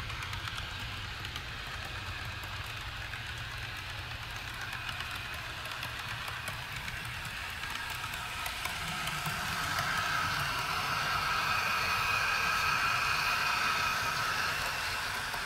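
HO-scale model train running along its track with its Star Trek boxcars: a steady rolling rumble with fine clicking from the wheels. A whining tone grows louder in the second half.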